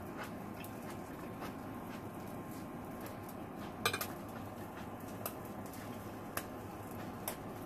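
Metal fork clinking and scraping on a ceramic dinner plate: a few light clicks, the loudest about four seconds in and ringing briefly, over a steady background hum.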